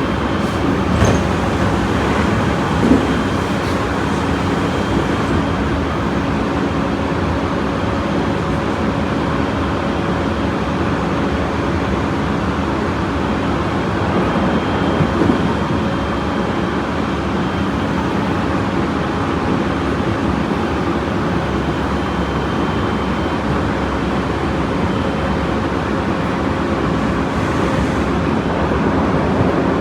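Tobu 30000 series electric train running at speed, heard from inside the car: a steady rumble of wheels on track with faint level tones from the running gear over it.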